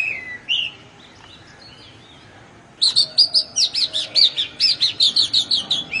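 Oriental magpie robin singing: two slurred whistles, a short lull with faint notes, then from about three seconds in a fast run of loud, sweeping high notes, about four a second.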